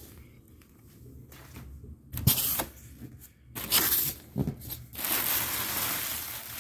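Packaging being handled during an unboxing: paper wrapping rustling and crinkling in short bursts, with a longer stretch of rustling near the end.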